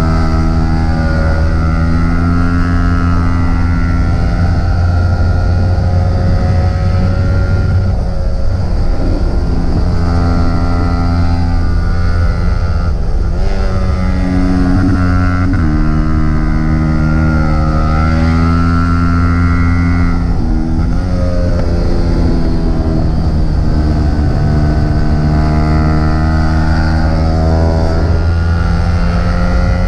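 Onboard sound of a 150 cc single-cylinder sport motorcycle engine under way, its revs stepping and gliding up and down with throttle and gear changes, over a steady low wind rumble on the microphone.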